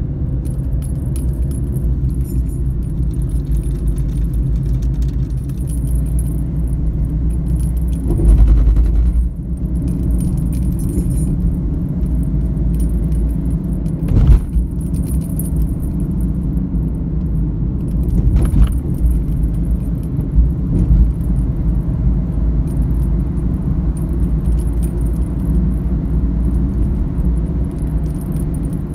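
Road and engine noise heard inside a moving car: a steady low rumble with a faint high rattle on top, broken by a few thumps, the loudest about 8 and 14 seconds in.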